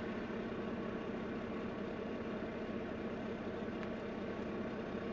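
Semi-truck diesel engine idling steadily.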